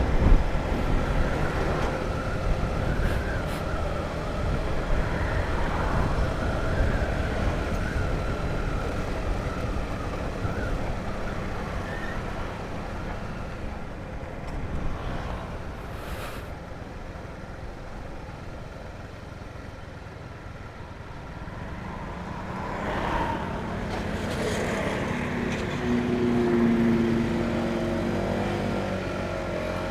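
Honda CBR150R motorcycle on the move in traffic: engine and road noise. It grows quieter around the middle, then louder again over the last several seconds as a pitched engine hum comes up.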